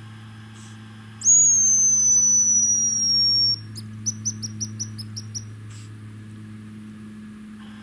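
Hazel grouse decoy whistle blown to imitate the male hazel grouse's song, as a lure for the birds. One long, thin, high whistle lasting about two seconds and sliding slightly down in pitch, followed by a quick run of about eight short high notes.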